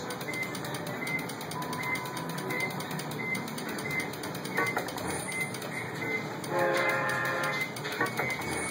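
Merkur 'Rail Road' slot machine running its free spins: reels spinning and stopping with the game's electronic beeps and jingles over arcade room noise. A louder multi-tone sound comes about seven seconds in.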